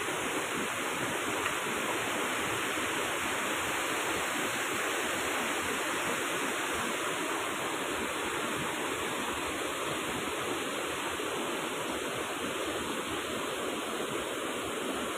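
Steady rush of a fast-flowing river, running high after very heavy rain.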